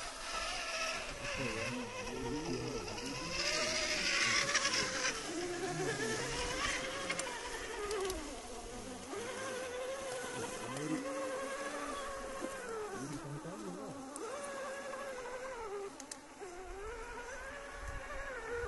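Electric motor and gearbox of a scale RC 4x4 crawler whining, the pitch rising and falling with the throttle as it crawls through shallow muddy water. A burst of hiss about four seconds in.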